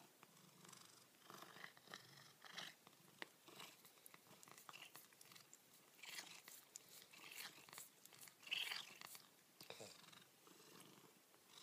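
Ginger-and-white long-haired cat purring softly while it rubs its head against a stroking hand, with irregular rustles and small clicks of fur against skin.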